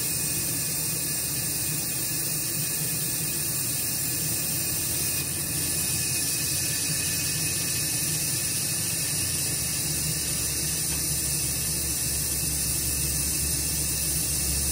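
Spray booth exhaust fan running steadily, a constant rushing noise, with a low hum joining in about two-thirds of the way through.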